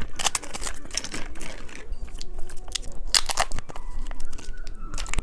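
Close-miked irregular crackles and crunches from candy being handled and bitten, a run of sharp snaps with short gaps.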